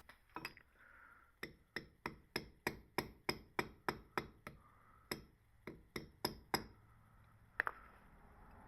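Hammer tapping a gold ring on a ring mandrel to adjust its shape and size, with sharp ringing metal strikes. A steady run of about three blows a second is followed by a few more spaced blows near the end.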